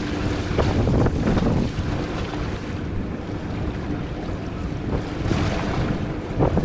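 Wind buffeting the microphone over open water, with a low, steady engine hum beneath it.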